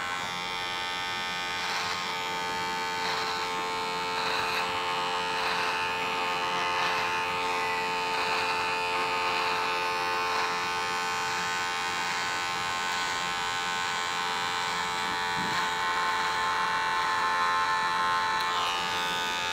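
Electric hair trimmer running with a steady buzz while its blade cuts outline lines into short hair at the nape, the cutting hiss shifting as it is drawn along.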